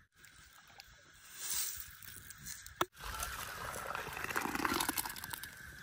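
Liquid poured from a soot-blackened pan into a metal pan, a steady splashing pour that starts after a cut about three seconds in and is the loudest part.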